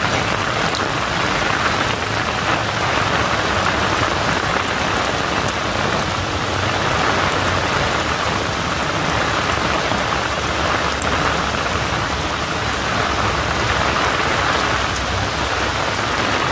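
Steady rain: a continuous even hiss scattered with tiny sharp ticks of drops.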